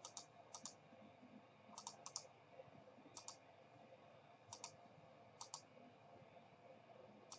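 Faint computer mouse clicks, about seven of them, each heard as a quick close pair of clicks, spaced a second or so apart.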